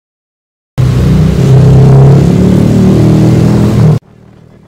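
A motor vehicle engine running loud and close, starting abruptly about a second in. It cuts off suddenly near the end, leaving faint street traffic noise.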